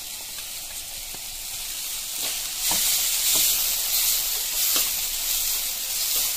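Chopped cabbage sizzling in hot oil in a kadai. The frying gets louder about two and a half seconds in, with a few short scraping strokes as it is stirred.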